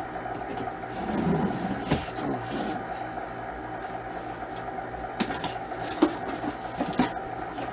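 Cardboard box being opened by hand: packing tape slit and pulled, with irregular rustling and several sharp taps and knocks on the cardboard, over a steady faint hum.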